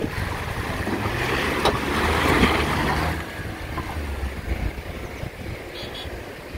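Chevrolet Trailblazer SUV's engine pulling under load as it climbs through muddy ruts, its tyres churning in the mud, loudest about two to three seconds in, with wind noise on the microphone.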